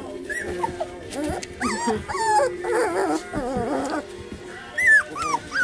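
Labradoodle puppies yipping and whining in play: several short high calls that slide up and down in pitch, the loudest near the end, over background music.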